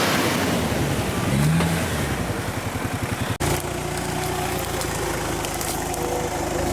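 Off-road 4x4's engine revving under load, its pitch rising and falling. There is an abrupt break about three and a half seconds in, after which an engine runs more steadily.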